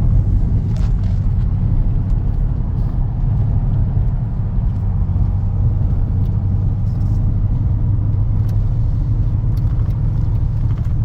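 Truck engine idling with a steady low rumble. It has a misfire on cylinder 3, as the owner's scanner reports, which a new coil, a new spark plug and a swapped injector have not cured.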